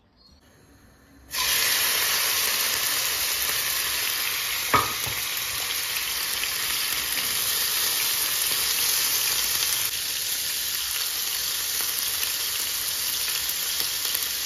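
Diced raw pork frying in hot oil in a frying pan and being stirred, a steady sizzle that starts suddenly about a second in. One sharp knock sounds about five seconds in.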